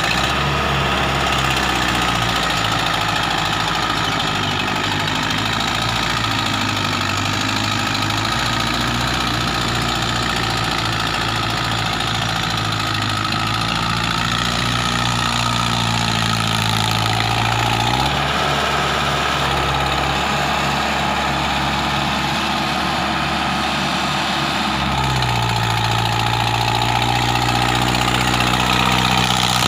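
Mahindra Arjun 555 DI tractor's four-cylinder diesel engine running steadily as it pulls a tined cultivator through the field. Its engine note changes twice, about two-thirds through and again near the end.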